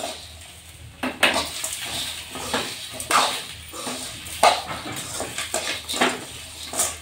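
Metal spatula scraping and clanking against a metal kadai while roasting spices, lentils and vegetables are stirred, in irregular strokes every half second to a second or so.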